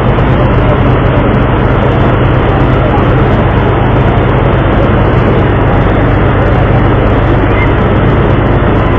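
A ship's engine runs with a steady low hum under a loud, even rushing of wind and water.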